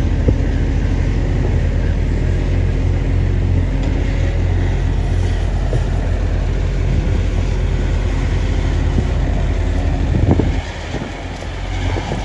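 Heavy diesel engine of a Cat 349F excavator running steadily under load, a low drone with a few knocks from the working machine. About ten seconds in the engine sound drops away to a quieter, more distant machinery rumble.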